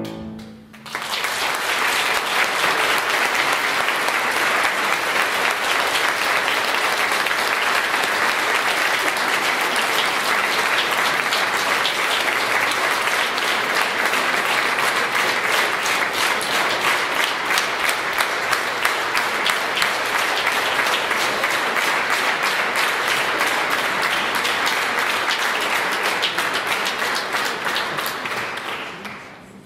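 Audience applauding, starting about a second in, holding steady, then dying away near the end.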